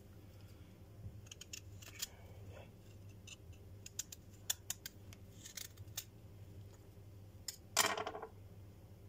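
Kitchen knife and utensils being handled while preparing a raw black radish: scattered sharp clicks and taps, and one louder crisp cut about eight seconds in.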